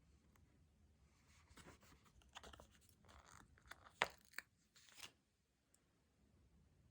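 Faint paper and sticker handling: stickers being peeled and paper rustling, with a sharp tap about four seconds in and a lighter one just after.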